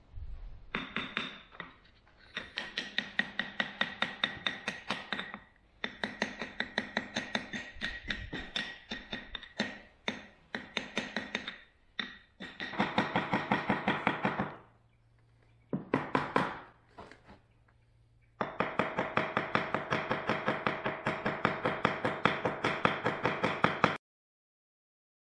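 A wooden stick rapping rapidly on a rail pattern bedded in a sand mould, about five sharp knocks a second with a slight ring. The knocking comes in runs of a few seconds with short pauses and cuts off suddenly near the end.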